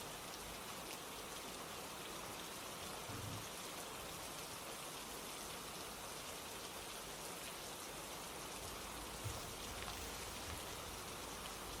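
Steady rain falling, an even hiss with scattered drop ticks. Two brief soft low thumps come about three and nine seconds in.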